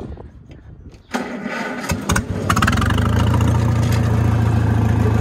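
Oliver Super 66 tractor engine cranked by its starter for about a second and a half, then catching and settling into a steady idle through an unclamped straight exhaust pipe. It is a start after the tractor has sat for over an hour.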